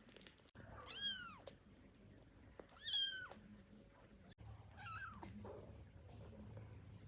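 Newborn kittens meowing: three thin, high calls about two seconds apart, each rising and then falling in pitch, the third one weaker. These are the calls of hungry kittens wanting milk.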